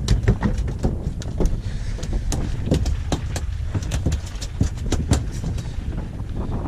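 A rapid, irregular series of sharp knocks and slaps on a small fiberglass fishing boat, over a steady low rumble of wind and water.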